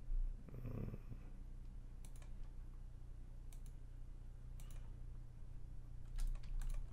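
Computer mouse clicks: single clicks a second or so apart, then a quick cluster of several near the end, over a steady low electrical hum. A brief low voice sound comes about half a second in.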